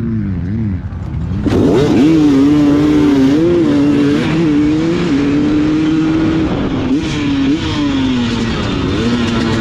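KTM 300 two-stroke dirt bike engine running under way. It gets much louder about a second and a half in, and its pitch rises and falls as the throttle changes.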